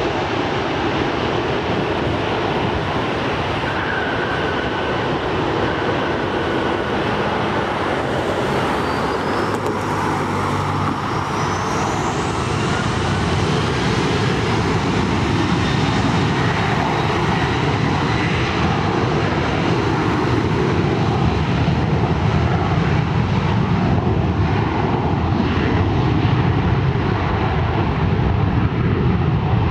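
Jet airliner engines at an airport, a continuous rumble mixed with road traffic. A thin whine rises in pitch about nine to thirteen seconds in, and the engine noise grows a little louder toward the end.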